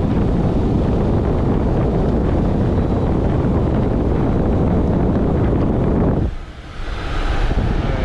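Frigidaire dehumidifier running, its fan's airflow rushing steadily and loudly across the microphone held just above the unit. The rush drops out briefly about six and a half seconds in, then returns.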